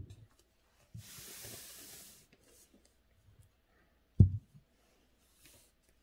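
A dull thump, then about a second of soft rubbing against calligraphy paper, and a second thump about four seconds in, followed by a brief faint rub.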